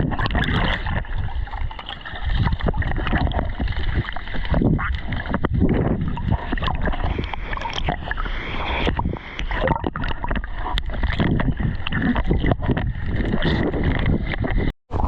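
Creek water splashing, sloshing and gurgling close against the microphone as a swimmer treads water, muffled and irregular throughout; the sound cuts out for a moment near the end.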